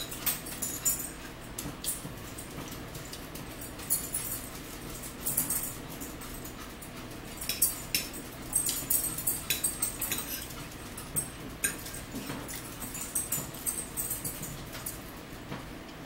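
Close-up eating sounds: chewing and smacking near the microphone, with short clicks of forks on plastic plates coming in irregular clusters.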